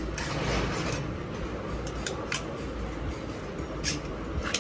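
Sharp metallic clicks and light knocks from a Chinese AK-pattern rifle being handled, about half a dozen spread through, over a steady low hum.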